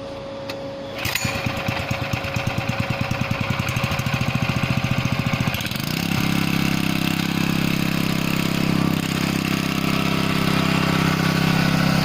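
Small gasoline engine of a portable hydraulic pump being started: about a second in a rapid, even pulsing begins and lasts several seconds, then just before six seconds the engine catches and runs steadily.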